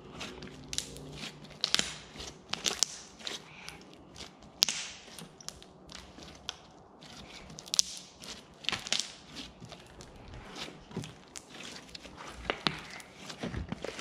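Crunchy slime kneaded and squeezed by hand, giving off an irregular run of sharp little clicks and pops.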